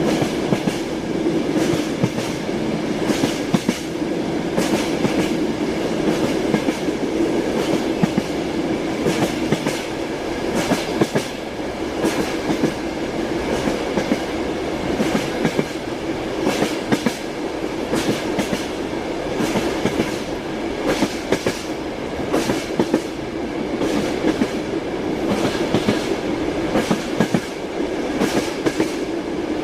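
Moving train: steel wheels clacking over rail joints on top of a continuous running rumble and a steady hum.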